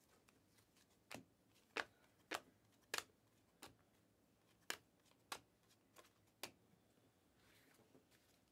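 Panini Mosaic trading cards being flipped off a stack in the hand one by one, each card giving a short, crisp snap, about nine in a row roughly every half-second to second.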